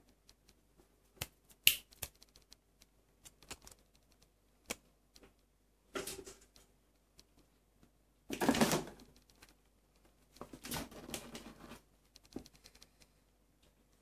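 A kitten moving about against a washing machine and a wooden bead-maze toy: irregular light clicks and taps, with short scratchy scuffles about six seconds in, a louder one just after eight seconds, and another around ten to eleven seconds.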